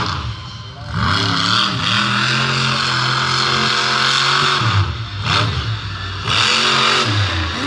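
Monster truck engine revving hard. It climbs, holds at high revs, drops briefly and rises again about five seconds in, then climbs once more near the end.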